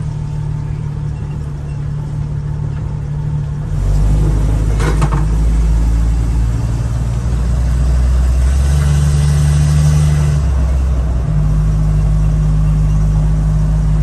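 Engine and drivetrain of a 1975 AM General DJ5-D postal Jeep running while driving, heard from inside the cab. The engine gets louder about four seconds in as it pulls, with a brief click a second later.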